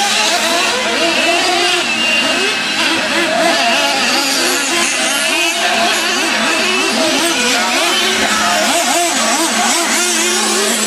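Several nitro-powered RC monster trucks racing at once, their small two-stroke glow engines running together and revving up and down out of step as they accelerate, jump and brake.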